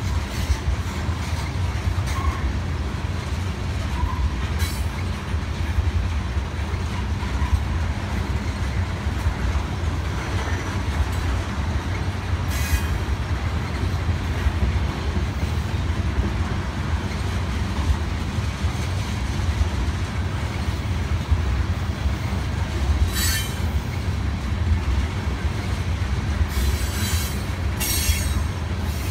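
Freight train of tank cars rolling past, a steady low rumble of wheels on rail, broken several times by brief high wheel squeals, most of them near the end.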